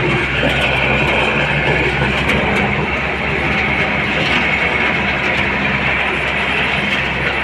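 Heavy diesel machinery engine running steadily under load, a constant low drone with a dense mechanical rattle over it.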